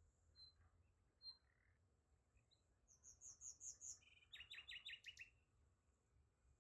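Faint outdoor birdsong: a songbird gives a quick run of about six high chirps, then a faster burst of lower trilled notes lasting about a second.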